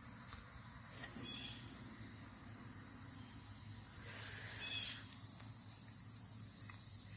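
Steady, high-pitched drone of crickets or similar insects chirring, with a couple of faint short chirps about a second in and near five seconds.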